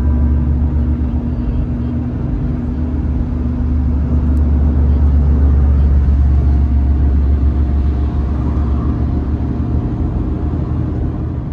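Car driving on the road: a steady low rumble of road and engine noise with a faint hum.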